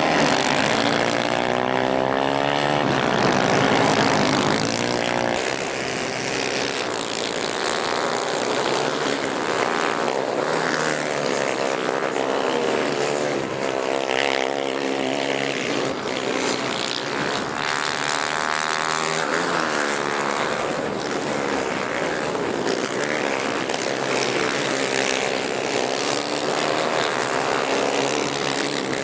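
Several 250 cc racing kart engines running hard, their pitch rising and falling again and again as the karts accelerate, lift off and pass by, with engines at times overlapping. The engines are loudest in the first few seconds.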